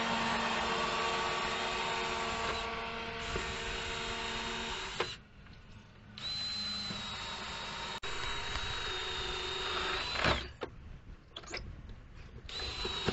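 Cordless drill boring into a new cedar gate post, the motor whining at a steady speed in three runs, the third short and near the end. A sharp knock comes at the end of the second run.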